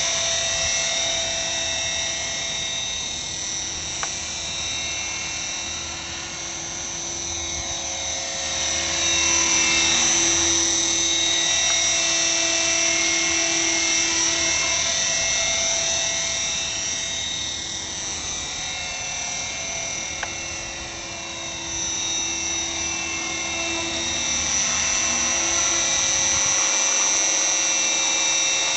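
Align T-Rex 450 SE electric radio-controlled helicopter in flight: a high steady whine from its motor and rotor drive over the hum of the spinning blades. It swells and fades as the model flies nearer and further away, the pitch bending as it passes.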